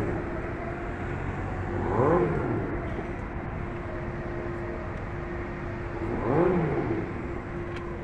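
A motor vehicle engine revving up and dropping back twice, about four seconds apart, over a steady mechanical hum.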